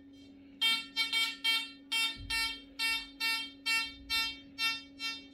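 Amiral XP-4 discriminating metal detector beeping: about a dozen short beeps of one pitch, two to three a second, starting about half a second in. This is its target signal as a small gold coin is moved over the search coil. A faint steady hum runs underneath.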